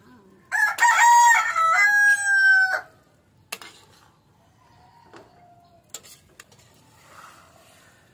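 A rooster crows once, loudly, for about two seconds starting half a second in, its call stepping up in pitch and holding before it breaks off. After it come a few light clicks of a metal spatula against an aluminium cooking pan.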